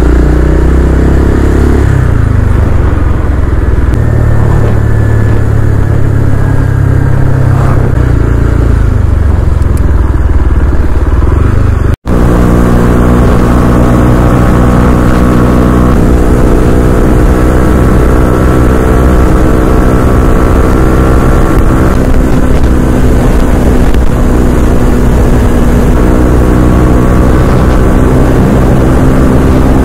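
A vehicle engine running at a steady speed under a low rumble, loud and close. The sound drops out for an instant about twelve seconds in, then carries on.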